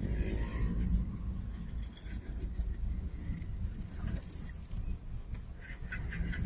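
Low, steady rumble of a car's engine and running noise heard from inside the cabin, with a high, thin metallic ringing about three and a half to five seconds in, loudest near the end of it.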